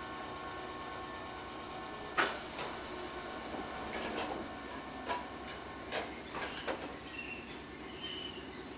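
Inside a 1960-built ex-Keikyu 1000 railcar: a single-leaf sliding door operates with a sharp thud about two seconds in, followed by several smaller clicks and knocks over the steady cabin hum. Faint high squeals come in during the second half.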